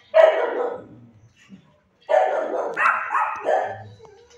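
Dog barking: one bark right at the start, then after a pause a quick string of about four barks.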